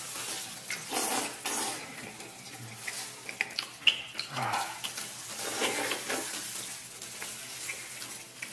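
Close eating sounds of two people biting and gnawing stewed beef ribs held in their hands: irregular wet chewing and biting, with scattered sharp clicks.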